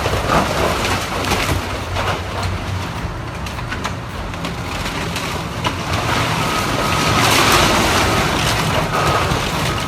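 Excavator demolishing a house with its grapple: the diesel engine hums steadily under continual cracking and crushing of timber and debris. A thin, high steady tone comes and goes in the second half.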